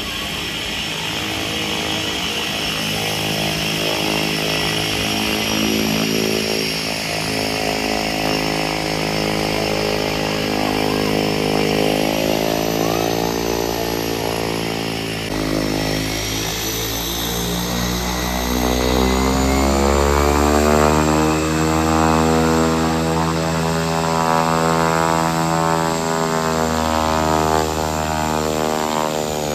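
Cessna 208B Grand Caravan's Pratt & Whitney PT6A turboprop running as the plane taxis: a steady propeller drone under a high turbine whine. About halfway through the whine rises in pitch and holds, and the drone shifts and grows a little louder.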